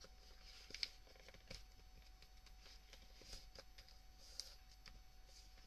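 Near silence with a few faint ticks and rustles of printer paper being folded and creased.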